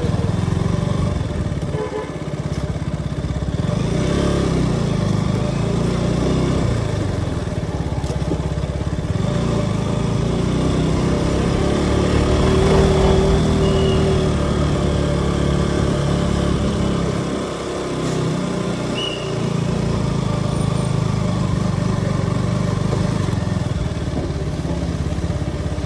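KTM RC sport bike's single-cylinder engine running steadily as it is ridden slowly, with the sound dipping briefly about two seconds in and again a little past halfway.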